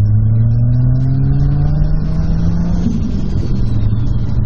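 Toyota Supra's inline-six engine heard from inside the cabin, accelerating hard with a steadily rising note. About three seconds in the pitch drops sharply at an upshift, and the engine pulls on at a lower, steady note while a faint high whistle falls away.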